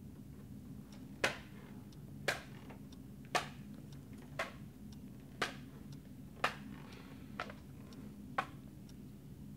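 Clock ticking slowly and evenly, about one sharp tick a second, over a steady low room hum.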